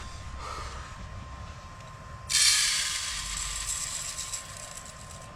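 Dry rice grains poured into a pot, rattling as they fall, starting suddenly about two seconds in and tapering off.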